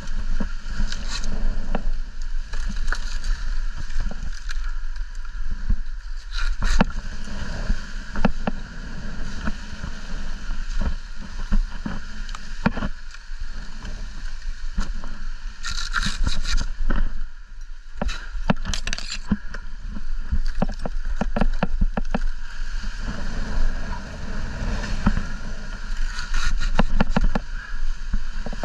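Wind buffeting the microphone with a constant low rumble, over irregular scraping and crackling of dry palm fronds and trunk fibre as they are cut and pulled away by hand.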